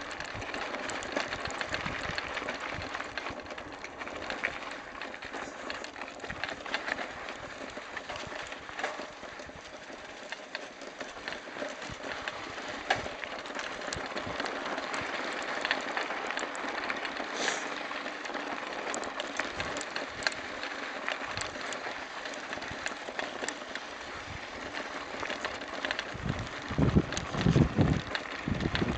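Mountain bike rolling over a rough dirt and gravel track: a steady crunch of tyres with constant small rattles and knocks from the bike. Wind buffets the microphone near the end.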